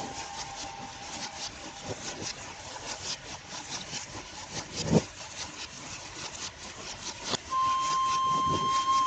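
Irregular clicking, rubbing and knocking, with one sharp knock about five seconds in, while a held flute note fades out; a steady flute note comes back in about seven seconds in.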